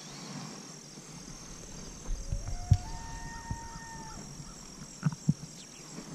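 A single elk bugle: one call that climbs in steps to a high whistle and holds it for about a second, a couple of seconds in. A few soft thumps follow near the end.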